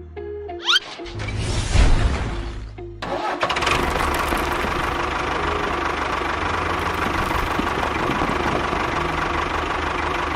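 A small engine starting, catching about three seconds in and then running steadily, over background music.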